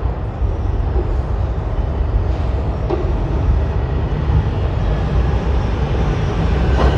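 Subway train rumbling into the station, a loud low rumble that grows slightly louder as it approaches.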